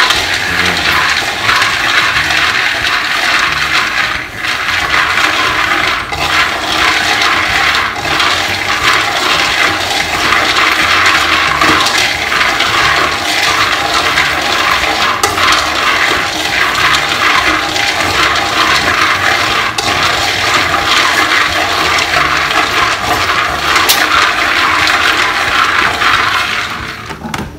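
Raw peanuts being dry-roasted in an aluminium wok and stirred with wooden chopsticks: a steady, dense rattle and hiss of the nuts tumbling against the metal, with many small clicks, until the skins split for peeling. It stops near the end.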